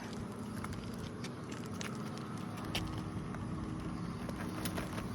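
Irregular sharp clicks and scrapes of a tool prying at asphalt roof shingles and their nails, trying to lift a shingle that is still nailed down, over a steady low hum.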